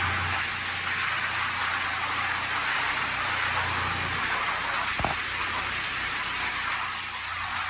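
Water spraying and splattering steadily over a car's body inside a Mark VII SoftTouch XT automatic car wash, with a low machine hum that comes and goes. A single short knock about five seconds in.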